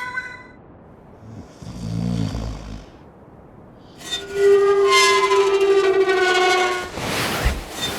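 A low rumble about two seconds in, then from about four seconds a loud, steady horn-like tone with several pitches sounding together. It is broken by a short noisy burst and a thump near the end.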